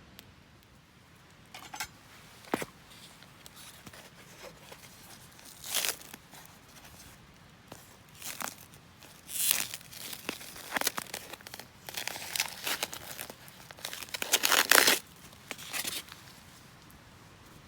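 Irregular crinkling and tearing noises in short bursts, as of crinkly material such as a wrapper being handled, growing busier towards the end with the loudest run about fifteen seconds in.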